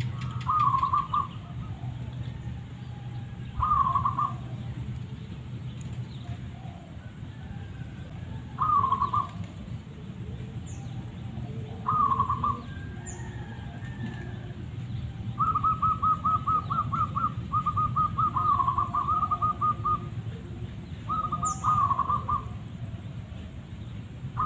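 Zebra dove cooing: short phrases of rapid staccato notes every few seconds, then a longer unbroken run of notes lasting several seconds from about the middle of the stretch.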